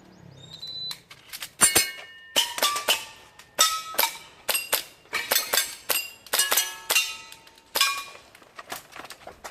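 A shot timer's start beep, then a fast string of airsoft pistol shots, with many of the pellets striking metal targets that ring briefly.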